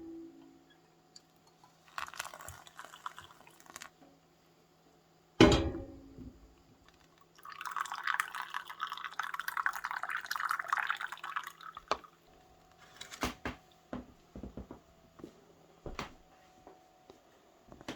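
Liquid poured into a container for about four seconds, among clinks and knocks of things being handled, with one sharp louder knock shortly before the pour.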